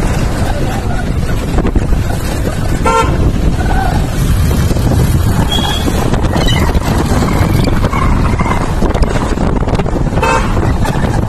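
Steady rumble of a moving motorcycle, wind on the microphone mixed with the engine running, and two short vehicle-horn toots, about three seconds in and again near the end.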